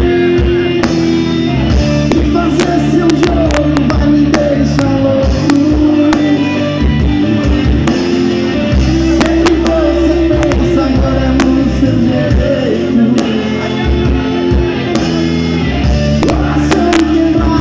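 Live band playing music with a steady beat: guitar, bass and drums, with a singing voice at times.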